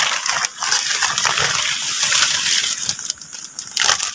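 Leafy branches rustling and crackling right against the microphone as they are pushed aside. The sound is dense for the first three seconds, then thins to scattered crackles.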